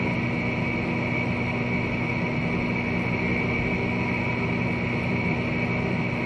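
Steady hum with a constant hiss, several fixed tones over an even noise floor.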